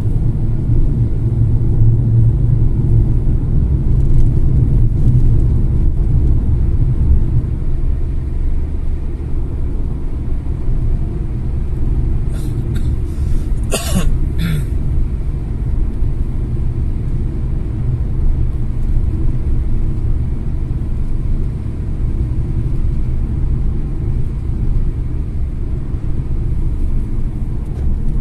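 Car driving at highway speed, its engine and tyre road noise making a steady low rumble inside the cabin. About halfway through comes a brief cluster of short, sharp noises.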